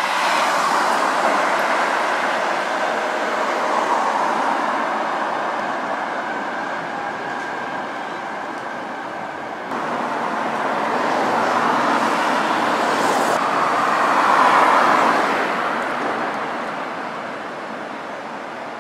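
City buses and cars driving past in street traffic, engine and tyre noise swelling and fading as each goes by. A yellow city bus passes first. After an abrupt change about ten seconds in, green biogas city buses pull past, loudest a few seconds later.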